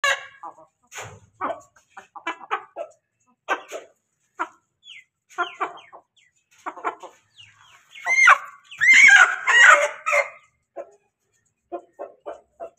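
Aseel hen clucking in a string of short calls, then a louder, drawn-out crow-like call of about two seconds starting some eight seconds in: a hen crowing.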